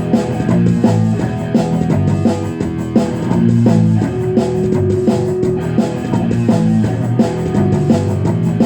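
Instrumental rock music: electric guitar and bass over a drum kit, playing a steady rhythmic passage with one long held note about halfway through.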